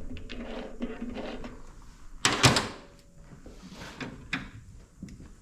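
Metal parts handled at a bench lathe while an axle spacer is checked after a cut: small knocks, then a loud metallic clatter about halfway through.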